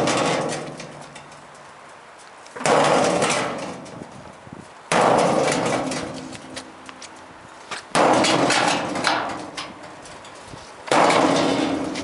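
Sledgehammer blows on the metal body of a stripped dishwasher: four loud clangs about every three seconds, each ringing on and fading over a second or so. It opens on the fading ring of an earlier blow.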